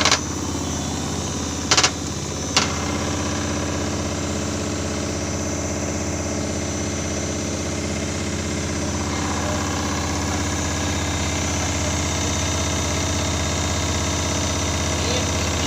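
IFB washing machine running with a steady mechanical hum, with two short sharp clicks about two seconds in. The owner puts the abnormal noise down to a broken mount for the front-panel circuit board.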